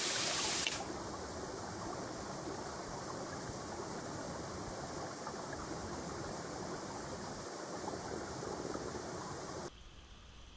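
A shallow stream running over stones: a steady rush of moving water, which drops to a much quieter ripple near the end.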